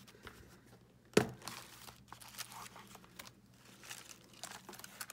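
Card stock and paper rustling as a folded handmade card is handled and stood up on a desk, with one sharp knock about a second in and small scattered taps and rustles after it.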